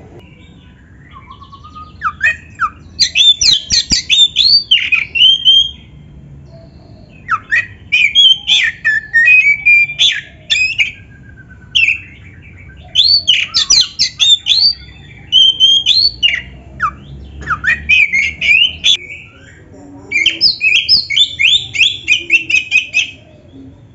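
Oriental magpie-robin (kacer) singing in full voice: loud, fast runs of varied whistles, sweeps and trills, laced with phrases borrowed from other birds' songs. It sings in four bouts with short pauses between.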